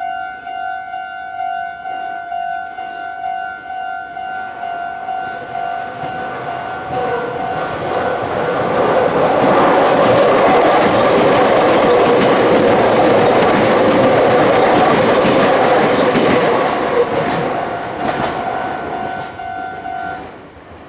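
Japanese level-crossing warning bell ringing in a steady pulsing two-tone pattern while a Meitetsu electric train passes through the crossing. The train's running noise builds to a loud rumble in the middle and then fades. The bell stops shortly before the end.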